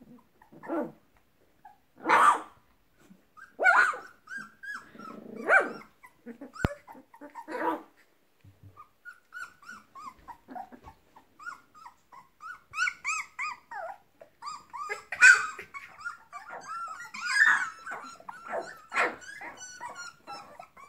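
Young puppies play-fighting. First come several short growls and small barks. From about nine seconds in there is a busy run of high, squeaky yips and whines.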